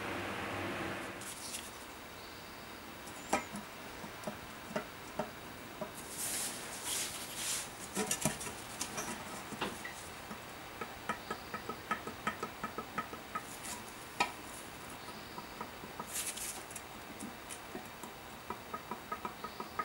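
Light clicks and taps of a steel rule and combination square being set down and shifted against an aluminium intake manifold's flange as it is checked for warp, with a few brief scraping rustles.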